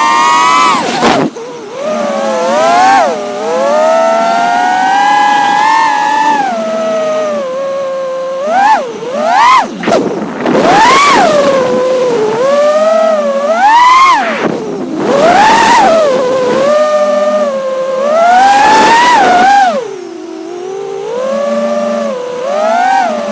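5-inch FPV quadcopter's brushless motors and propellers whining, the pitch rising and falling sharply with throttle punches and chops, and briefly cutting back about a second in and again near ten seconds.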